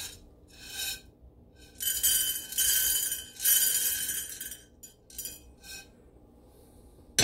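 Raw green coffee beans rattling on metal. There are a few short rattles as they are shaken in a steel pan. About two seconds in comes a steady pouring rattle lasting a few seconds as they slide out of the pan into a small cast iron skillet. A few light clinks follow.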